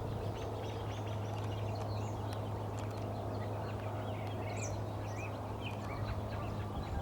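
Many short, high bird chirps and calls scattered throughout, over a steady low hum and background hiss.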